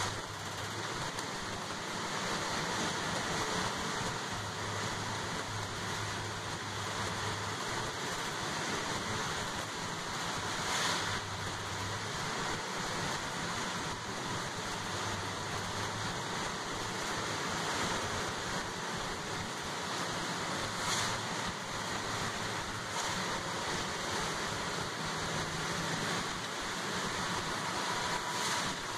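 Inside a transit bus driving in heavy rain: a steady wash of rain and wet-road tyre noise over a faint low engine hum, with a few brief louder swishes.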